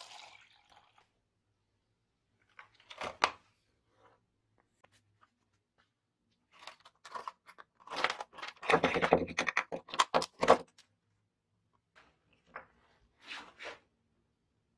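Liquid briefly poured from one thin plastic cup into another, then handling noise: crinkling of the thin plastic cup and clicking of small metal dispenser parts, a gear, springs and screws, loudest in a dense cluster of crackles and clicks in the middle, with a few scattered clicks near the end.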